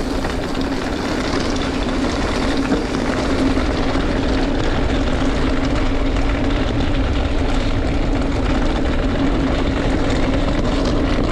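A mountain bike rolling fast: wind rushing over the microphone, with a steady drone from the bike itself.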